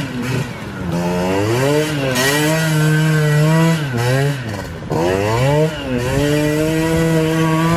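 Small moped scooter engine revving hard as the rear wheel spins in loose leaves and mud. The revs climb and drop several times, dipping at about four and six seconds in, then hold high and steady near the end.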